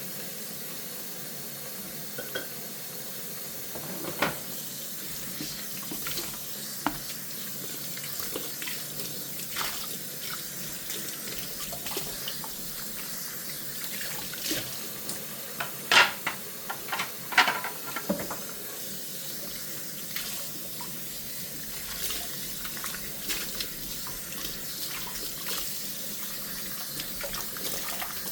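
Kitchen tap running steadily into a sink during hand dishwashing, with scattered clinks and knocks of dishes. A quick run of louder clinks comes a little past halfway.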